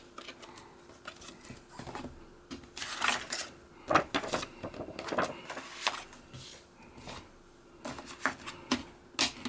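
Paper rustling and scattered sharp clicks as a DVD booklet's pages are leafed through and an insert card is handled, loudest about three to four seconds in.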